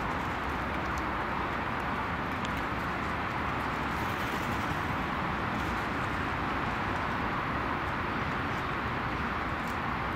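A steady rushing background noise with no calls, broken only by a few faint ticks.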